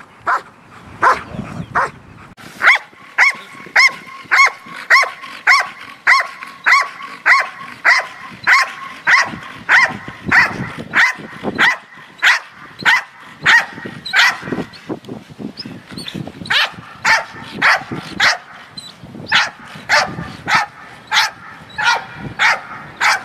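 A dog barking steadily and rhythmically, about two barks a second. The dog is barking at a ball held in front of it while it heels, waiting to be released to get the ball.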